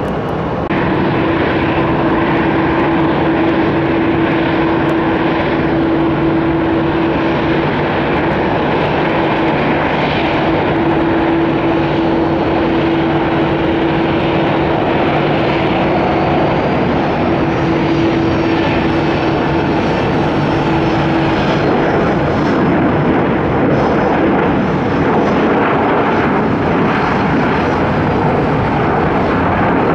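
Jet noise from a landing Boeing 737-800's twin CFM56-7B turbofan engines: a loud, steady rush with a held hum that stops about two-thirds of the way through.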